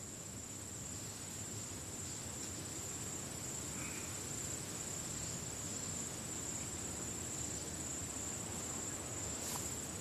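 Insects trilling steadily on one high pitch, over a faint low crackle.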